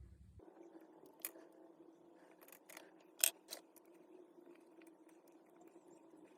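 A few sharp clicks and taps, the loudest about three seconds in, over a faint steady hum: small parts and tools being handled while an electric demolition hammer is taken apart.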